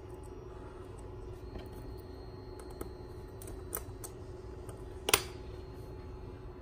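Small clicks and taps of hands handling thin hookup wires and a plastic relay module, with one sharper, louder click about five seconds in. A faint steady hum runs underneath.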